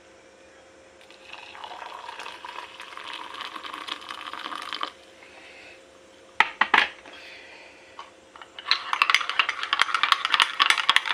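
Kitchen clatter: a few seconds of hiss-like noise, then a couple of sharp clinks, then rapid, dense clinking and rattling near the end.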